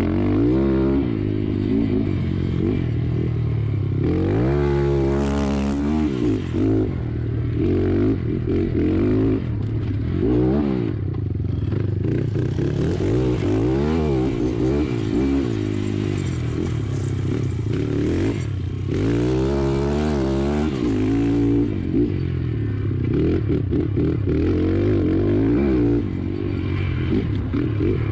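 Pitster Pro LXR 155 pit bike's single-cylinder four-stroke Z155 engine through an FMF exhaust, ridden on a dirt track: the engine revs up and down over and over with the throttle and gear changes, its pitch climbing and falling, with the highest revs about five seconds in and again near the twenty-second mark.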